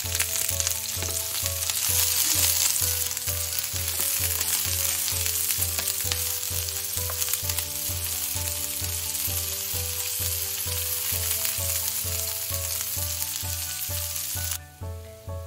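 Sliced onion sizzling as it fries in hot mustard oil in a pan, stirred with a spatula; the sizzle cuts off suddenly near the end. Background music with a steady beat runs underneath.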